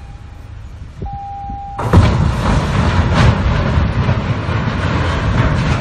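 A short steady tone, then about two seconds in a sudden loud rumbling, grinding noise that carries on, with a few sharp cracks in it: two steel-hulled cargo ships colliding hull against hull.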